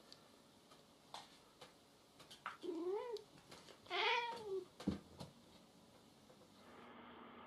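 A domestic cat meows twice during a face-off between two cats, each call rising then falling, the second longer and louder. A few light knocks come in between.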